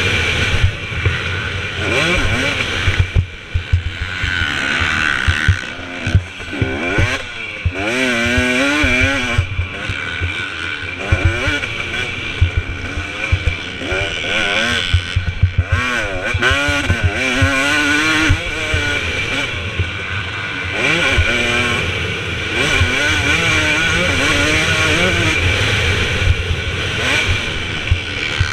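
2017 KTM 250 SX two-stroke motocross engine racing hard, its pitch rising and falling over and over as the throttle is worked and the gears change, with brief drops where the throttle is closed a few seconds in.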